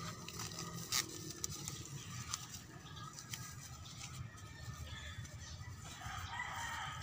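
Plastic film crinkling and crackling as it is wrapped and tied by hand, with a sharp crackle about a second in. A rooster crows in the background near the end.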